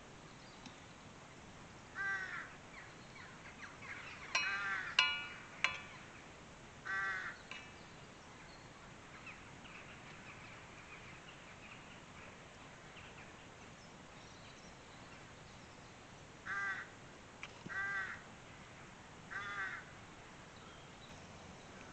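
A crow cawing: a few harsh caws in the first seven seconds, then three more near the end about a second and a half apart. A few sharp clicks fall among the caws about five seconds in.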